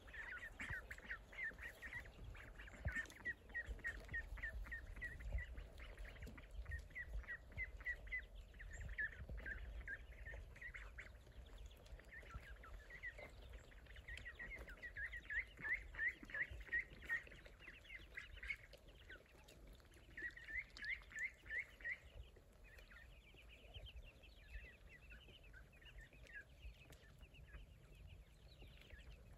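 Ducklings peeping in quick runs of short, high notes, with pauses between the runs.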